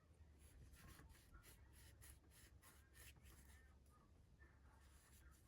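Faint, quick rubbing strokes, repeated many times: something being scrubbed and wiped over the inside of an opened tablet.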